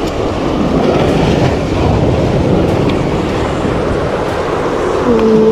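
Ocean surf surging and washing over the rocks below, a loud continuous wash without a break. A voice comes in near the end with a drawn-out, held sound.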